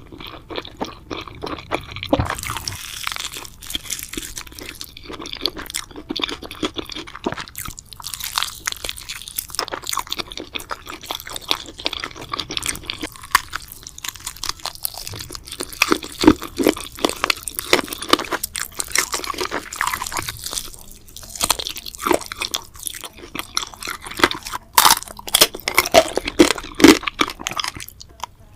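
Close-miked chewing and crunching of spicy pork head, a dense run of irregular wet smacks and crunches, with a few sharper, louder crunches past the middle and near the end.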